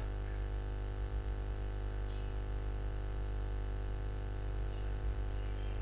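Steady electrical mains hum with a stack of overtones, with a few faint, short high chirps about half a second in, around two seconds and near the end.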